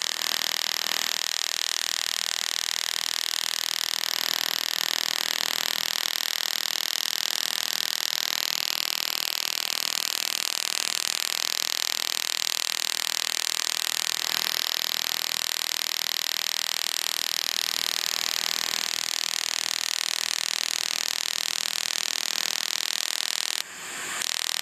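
Fotona SP Dynamis Er:YAG laser firing continuously at 40 pulses a second, a steady hissing buzz as it ablates a seborrheic keratosis. It cuts out briefly near the end.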